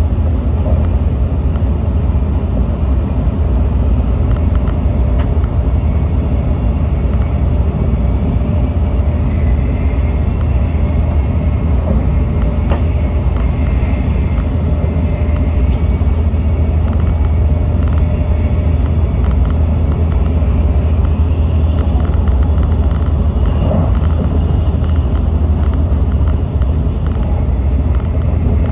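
Shinkansen bullet train running at speed, heard from inside the passenger car: a steady, loud low rumble of wheels and running gear, with a faint high whine coming and going.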